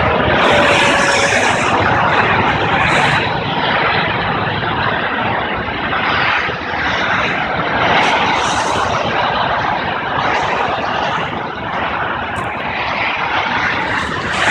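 Highway traffic passing below: a continuous rush of tyres and engines that swells and eases every few seconds as vehicles go by, with no horn.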